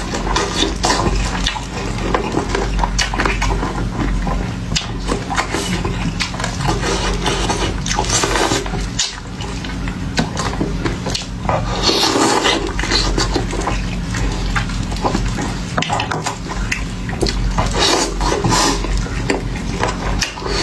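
Close-miked eating of fried food: continuous crunching and wet chewing, with many small crackles and smacks of the mouth.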